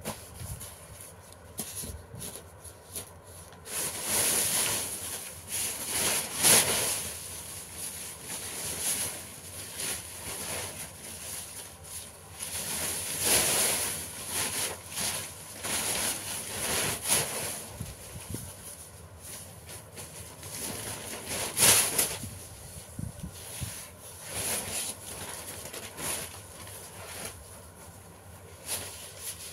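Sheets of paper rustling and creasing as they are handled and folded by hand, in irregular strokes with a few louder rustles.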